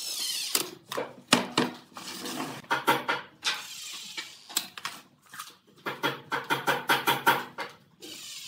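Cordless impact driver driving screws through a plastic crate's rim into a wooden lid, running in several short bursts of rapid clattering impacts, with a longer burst near the end.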